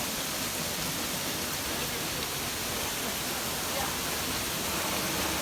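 Waterfall running steadily: an even rushing hiss of falling and splashing water.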